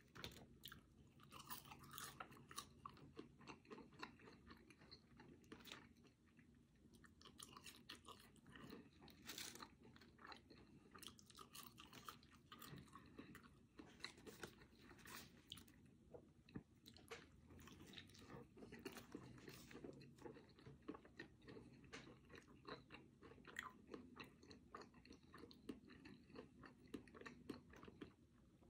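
Faint, close-miked chewing and biting of French fries and a bacon cheeseburger: many small crunches and crackles.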